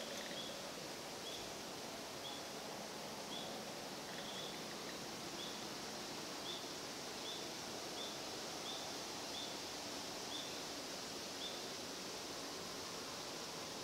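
Quiet outdoor ambience: a steady hiss with a short, high chirp repeating about once a second, which stops shortly before the end.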